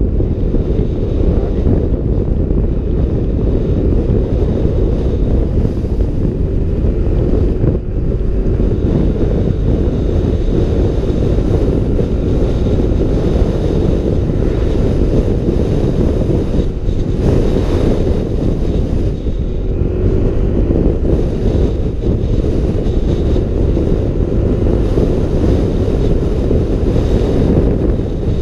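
Loud, steady wind rush buffeting the microphone of a helmet camera on a Yamaha NMAX scooter riding at road speed, with the scooter's running and road noise mixed into the low rumble.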